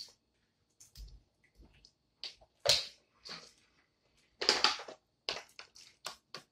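Boiled peanut shells being cracked and picked apart by hand, heard as scattered short clicks and cracks, a few of them louder. A plastic water bottle is handled during a drink in the second half.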